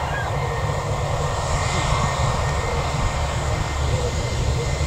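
Airliner engines running, a steady broad rush of noise over a deep rumble that holds level throughout.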